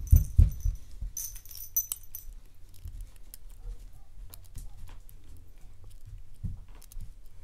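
Small metallic clicks and scrapes of a lock pick and tension wrench working the pins inside a brass K1 Locks 'Evil' lock held in the hand, with a few dull handling bumps near the start and one about two-thirds of the way through.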